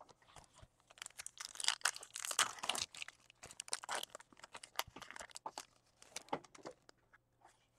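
A foil trading-card pack being torn open and its wrapper crinkled in the hands: a dense run of crackles, loudest a second or two in, thinning out near the end.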